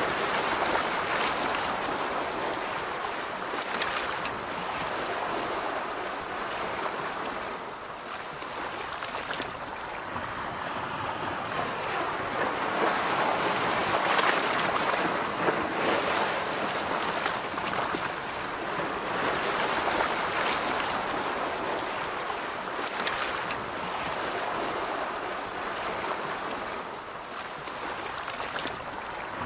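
Ocean surf washing on a beach, a steady rush of water that swells and eases every several seconds.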